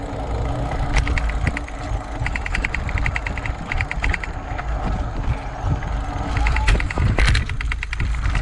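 Mountain bike rolling over a wooden boardwalk and onto dirt trail: the rear freehub ticks rapidly in short spells as the rider coasts, over a steady low rumble of tyres and wind on the camera mic, with a couple of sharp knocks from bumps.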